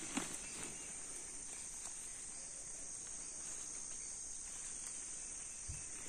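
Steady high-pitched chorus of insects, with a few faint rustles near the start.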